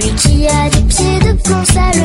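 Upbeat electronic pop music with a steady beat and a pitched melody line.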